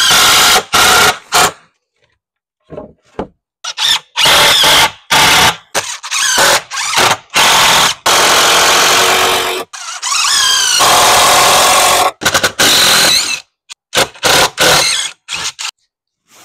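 Old wooden porch step boards being pried up with a pry bar: wood creaking and nails squealing as they pull free, in repeated loud bursts of one to three seconds, with a falling squeal about ten seconds in.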